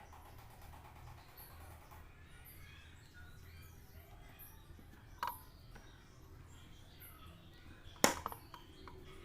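Two sharp clicks or knocks over a faint background, one about five seconds in and a louder one near the eight-second mark, followed by a few small clicks.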